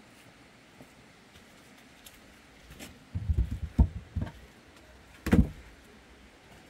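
Firewood logs knocking and thudding as they are set down on a porch floor: a cluster of dull knocks about three seconds in, then one heavier thud a second or so later.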